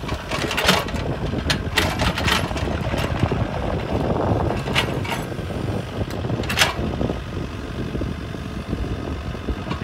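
IHI mini excavator's diesel engine running steadily as the bucket digs and dumps wet soil, with sharp knocks now and then.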